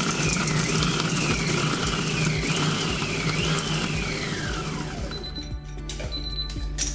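Krups i Prep & Cook kitchen machine's motor running at top speed (13) with the Ultrablade chopping onions in the closed pot, a whine that rises and dips as the blade cuts. After about five seconds it winds down and stops.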